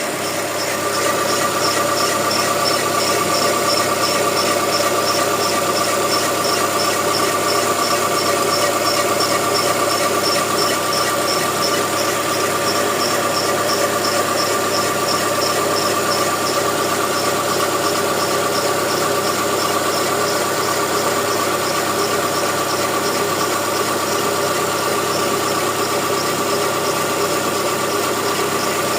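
Chevrolet Onix 1.4 four-cylinder engine idling on its first start of the day, with a steady high-pitched squeal over it and a fast, even ticking. This is the abnormal noise that shows up on the first start.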